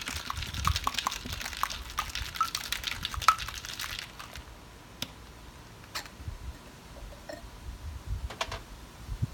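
Ice cubes rattling hard inside a Boston-style cocktail shaker (metal tin capped with a mixing glass), shaken fast for about four seconds to chill a vodka cocktail. After that come a few separate knocks as the shaker is lowered and opened.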